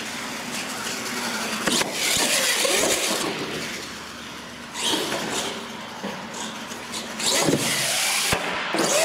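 Radio-controlled monster truck driving on a concrete floor: its motor whines, rising and falling in pitch as it speeds up and slows, over the tyres' rushing. A few sharp knocks as the truck hits the floor, one near the end as it tumbles.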